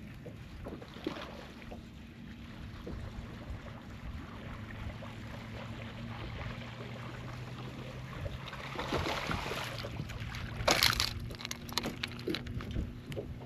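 Water lapping and splashing around a fishing boat, with wind on the microphone and a low steady hum. The washing noise grows louder past the middle, and a sharp splash comes a little before the end.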